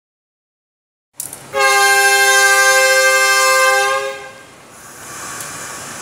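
Horn of the CC201 diesel-electric locomotive CC201 83 32 sounding one long steady blast of about two and a half seconds, a chord of several tones that sounds like the horn of a BB303/BB302 locomotive rather than a usual CC201 horn. After it fades, a quieter steady noise of the train running on.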